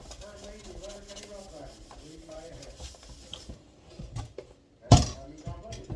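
Rubbing and scrubbing while a kitchen sink is cleaned, with a few light knocks and one sharp knock about five seconds in.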